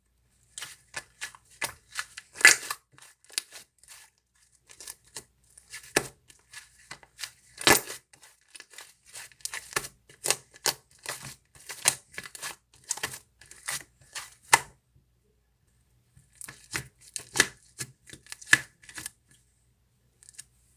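Oreo cream slime being squeezed and pressed by hand, with trapped air bubbles popping in quick, irregular clicks and crackles. The sound stops for about a second roughly three quarters of the way through, then starts again.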